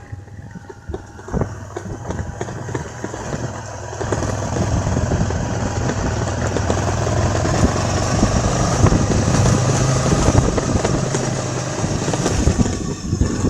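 A motor vehicle's engine running steadily, louder from about four seconds in and easing off near the end, with scattered rattles and knocks over it.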